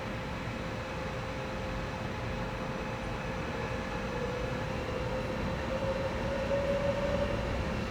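Intermodal freight train pulling out, a low rumble with a steady squealing tone from the wheels that swells near the end, the whole growing gradually louder.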